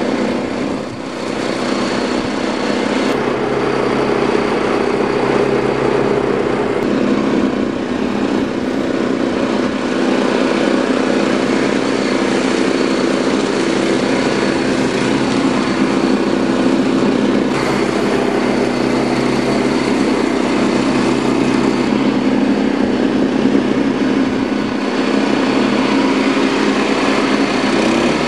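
Lawn tractor's small engine running steadily, a continuous drone that holds its pitch.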